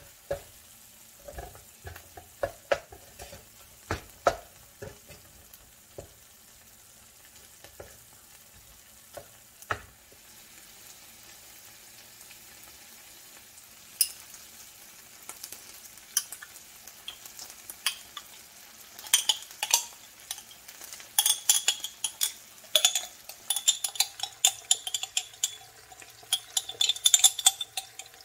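Food frying in a nonstick pan, with a wooden utensil tapping and stirring. It starts with a few separate knocks, then about halfway through it turns into steady sizzling and crackling as halved cherry tomatoes fry, with stirring clatter that gets busier toward the end.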